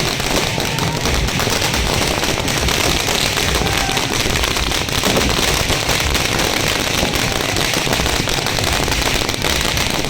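Firecrackers going off in a dense, unbroken crackle of many rapid small bangs.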